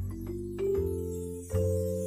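Background music: a light tune of struck, ringing notes, a new chord about every three-quarters of a second.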